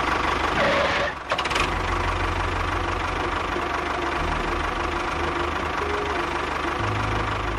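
An engine running steadily with a knocking rhythm, briefly broken about a second in.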